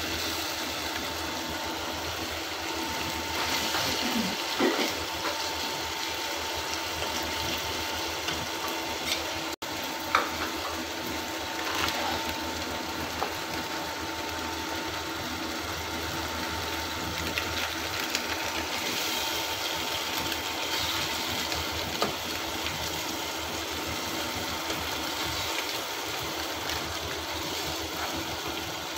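Vegetables simmering and sizzling in a thin sauce in a nonstick wok, stirred with a plastic spatula that knocks against the pan a few times, over a steady mechanical hum.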